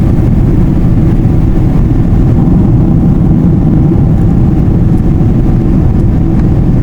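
Jet airliner heard from inside the cabin: a loud, steady rumble of engines and airflow, with a faint steady hum above it.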